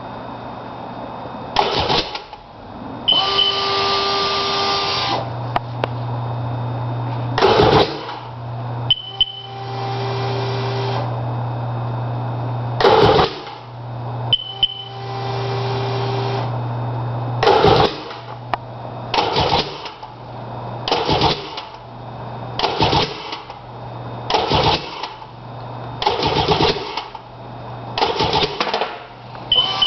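Sea-Doo GTX DI personal watercraft being cranked in short repeated bursts of the starter without the engine catching: a no-start. A steady hum and a few held tones sound between the bursts.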